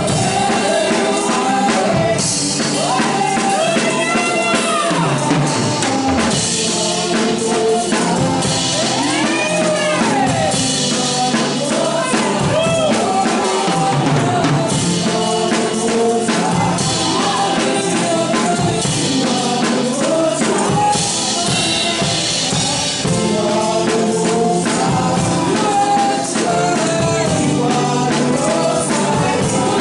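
Live gospel band playing: a drum kit struck with sticks, with cymbal crashes and a steady beat, over keyboard and bass guitar, with voices singing.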